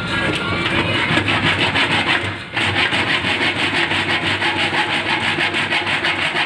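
Rapid back-and-forth scraping and rubbing by hand on a rusty sheet-metal stove panel, in fast, even strokes, with a brief pause about two and a half seconds in.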